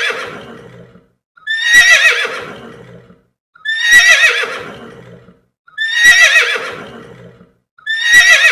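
Horse whinnying, the same quavering neigh sound effect repeated about every two seconds, each call starting loud and trailing off.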